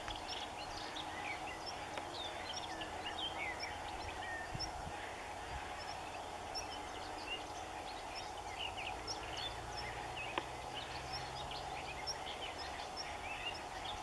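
Small birds chirping and calling in the background, many short high notes scattered throughout, over a steady low hum.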